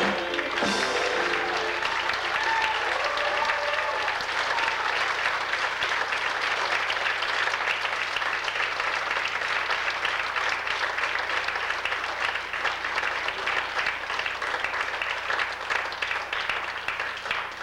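Audience applauding steadily after a song, with a few voices calling out in the first few seconds, as the song's last note dies away at the start. The clapping thins out near the end.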